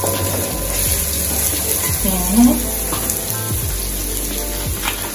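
Sliced onion, scallion and thyme sizzling steadily in a large aluminium pot, stirred with a wooden spoon at first and then left to fry.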